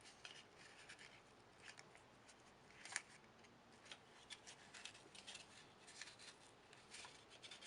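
Faint rustling and small clicks of cardboard tube rings and adhesive tape being handled as two rings are taped together at a hinge, with one sharper click about three seconds in.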